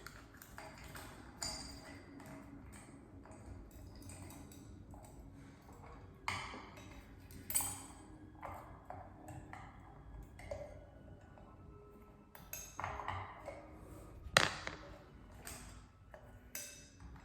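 Scattered light clicks, clinks and taps of a ceiling fan's light-kit dome and its small screws being fitted by hand, with a sharper knock about 14 seconds in.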